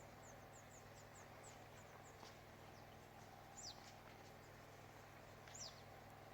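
Faint bird chirps, each a short high note falling quickly in pitch: a quick run of them in the first second and two single ones later, over a low steady hum.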